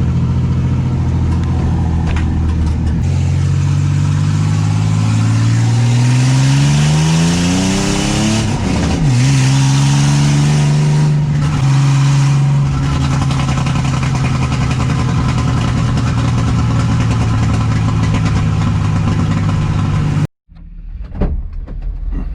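Ford Mustang's V6 engine accelerating, its pitch climbing for several seconds, then dropping at a gear change and running steadily at cruise. The sound cuts off suddenly near the end.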